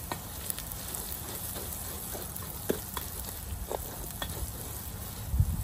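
Raw rice sizzling as it toasts in hot oil in an enamel pot, a wooden spoon stirring and scraping through the grains with scattered small clicks. A brief low rumble comes near the end.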